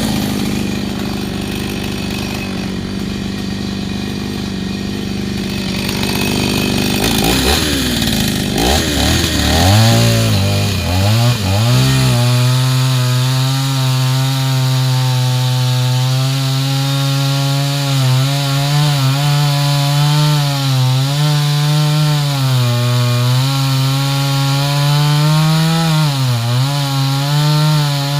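Two-stroke chainsaw running and cutting into a coconut palm trunk. Its pitch swings up and down several times in the middle, then holds a steady high-revving note that dips briefly as the chain bites into the wood.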